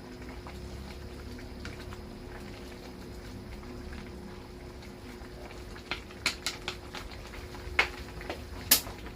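Pot of chicken and glass-noodle soup boiling, with a steady low bubbling. A handful of sharp clicks or taps comes over it in the last few seconds.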